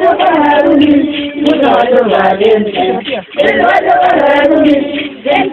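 A group of voices singing a festive dance song together, with a short break about three seconds in.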